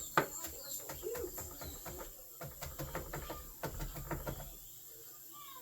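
Quick, irregular clicks and knocks from cookware and utensils being handled during cooking, stopping about four and a half seconds in.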